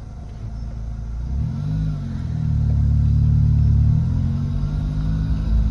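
Car engine heard from inside the cabin while driving, the engine note rising as the car picks up speed about a second and a half in, dipping briefly, then holding louder and steady.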